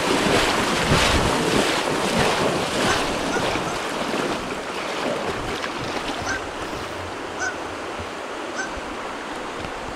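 Steady rush of river water with wind buffeting the microphone, roughest in the first few seconds and easing off after that.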